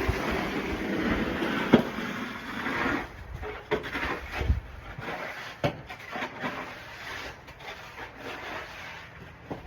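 Snow shovel scraping across a driveway through wet snow for about three seconds, followed by scattered knocks and short scrapes.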